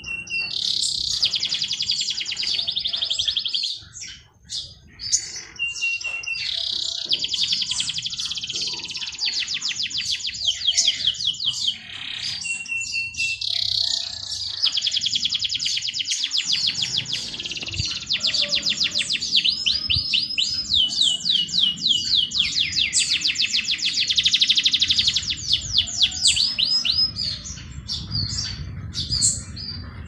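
Songbirds singing: each phrase opens with a short steady whistle and runs into long, fast, high trills, repeated almost without pause, with scattered chirps between.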